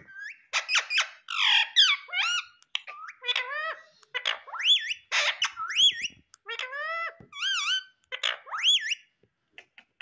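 Female Indian ringneck parrot calling in quick series: short harsh squawks mixed with whistled notes that swoop up and down in pitch, with brief pauses between bursts.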